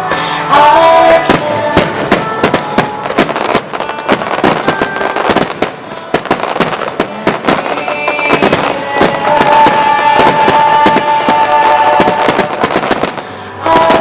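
Starmine fireworks barrage: many shell bursts and bangs in quick succession, dense throughout, over music with sustained held notes.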